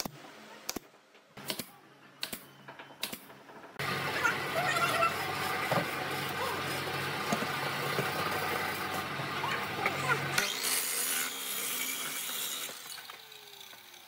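Miter saw cutting through a small block of old reclaimed hardwood: a few sharp knocks at first, then the saw runs and cuts with a loud, dense rasp for about six seconds, followed by a fainter high hiss that fades away.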